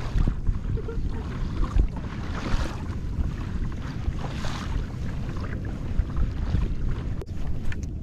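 Wind rumbling on the microphone over water sloshing around a kayak on the open sea, with a few brief swells of hiss.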